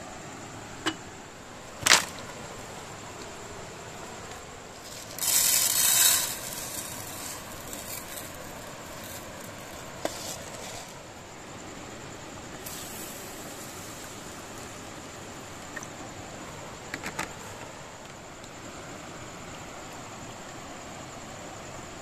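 Camp cooking handling sounds: a sharp knock about two seconds in, then about a second of loud rattling hiss as dry rice is poured into an aluminium mess tin, and a few light clicks later. A steady, faint, high-pitched drone runs underneath.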